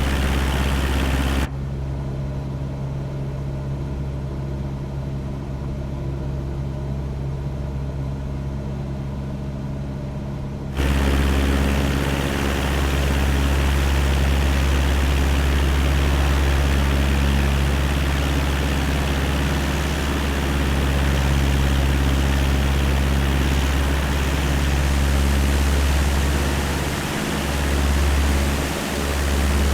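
Cessna 172's piston engine and propeller running steadily in flight, heard from inside the cabin as an even hum with noise above it. From about 1.5 s to 11 s the sound turns duller, with its high end cut away, then comes back full.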